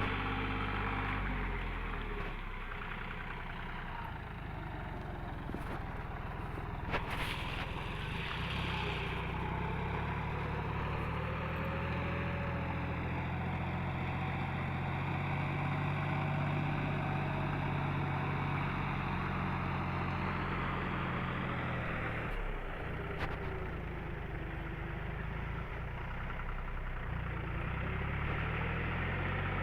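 Tractor engine running steadily while ploughing soil, its note sagging briefly a couple of times as the load changes.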